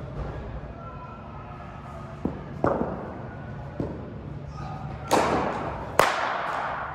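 Cricket ball impacts in a sports hall: a few lighter knocks, then two loud sharp hits about a second apart near the end, each ringing out in the hall's echo.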